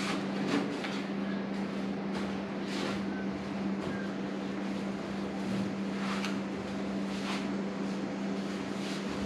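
A steady low hum under faint, brief scraping strokes of a squeegee spreading Coat It coating over an aluminum jon boat hull.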